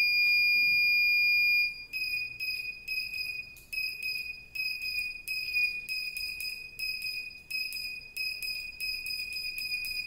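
Push-button buzzer in a breadboard circuit sounding a high, steady beep. It is held for about the first second and a half, then switches on and off in quick, uneven beeps, about two or three a second, as the button is pressed and released.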